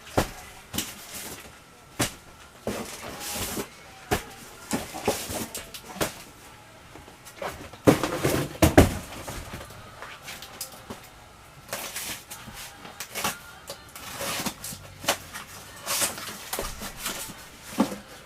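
Cardboard shipping boxes being handled and moved: irregular knocks, thumps and scraping of cardboard, loudest about eight to nine seconds in.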